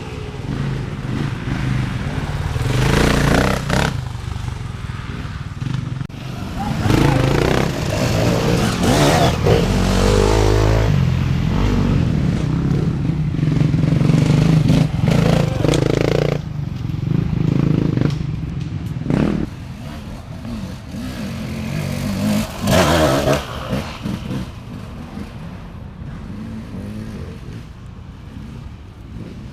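Off-road dirt bike engines revving as bikes ride past. The engine note rises and falls in several loud surges, then fades toward the end.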